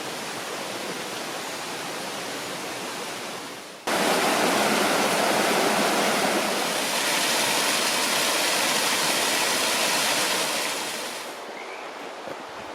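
Rushing water, a steady even rush that jumps sharply louder about four seconds in and drops back near the end.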